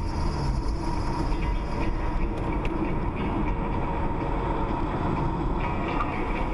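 Steady road and engine noise heard from inside a car driving at highway speed, a constant low rumble with tyre hiss.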